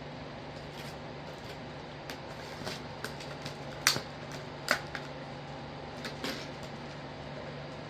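Cardboard and plastic packaging being handled and pried at: a few short, sharp clicks and crackles scattered through, over a steady low hum.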